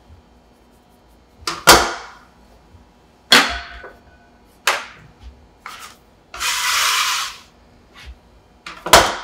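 Metal bench scraper scraping across a floured wooden counter in short, sharp strokes, about five in all, with one longer scrape of about a second past the middle.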